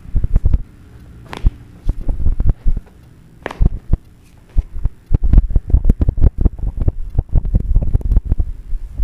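A rapid, uneven run of dull low thumps, quieter for a second or so in the middle, then coming thick again for the last few seconds.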